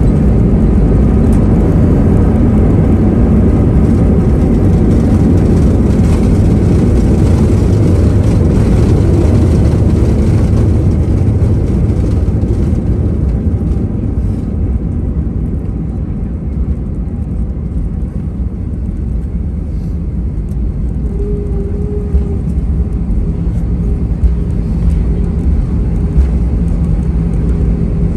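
Airbus A320 cabin noise as the jet slows on the runway after touchdown: a loud roar of its IAE V2500 engines and the runway rumble. The roar dies away about halfway through, leaving a quieter engine hum with a steady tone and a few light knocks near the end.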